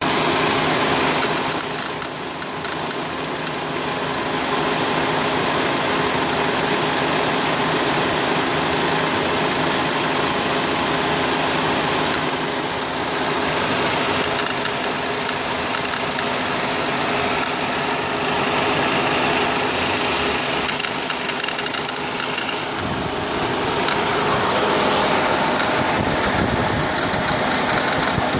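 2004 Honda Accord engine running steadily, with a clicking from the accessory drive belt area. The clicking comes from a failed belt tensioner.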